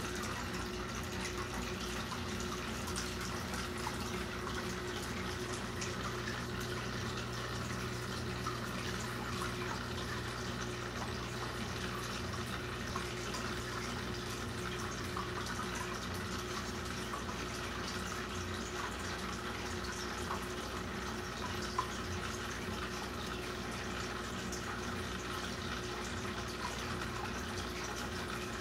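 Saltwater aquarium's water circulation running: a steady trickling, bubbling water sound with a constant low hum underneath.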